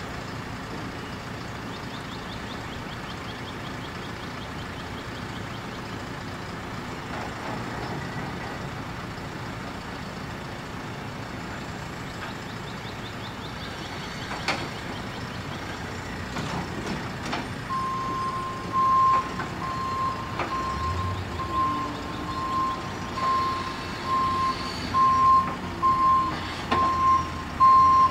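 JCB telehandler's diesel engine running, and past the middle its reversing alarm starts beeping at an even pace, about one and a half beeps a second, as it backs up.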